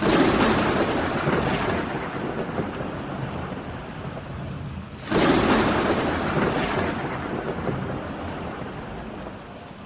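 Thunderstorm: two sharp thunderclaps, one at the start and another about five seconds in, each rolling off slowly over several seconds, over steady rain.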